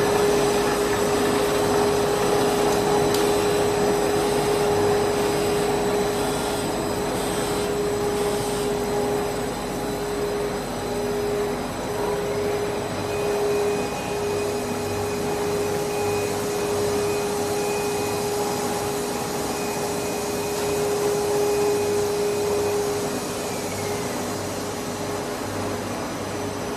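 Stretch film production line running: a steady machine whir with a constant hum tone. A higher, thin whine comes in about halfway through and glides down and stops shortly before the end.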